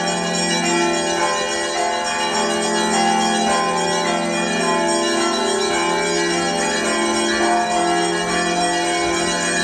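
Russian Orthodox monastery bells ringing together at many pitches, their tones overlapping and sustained without a break.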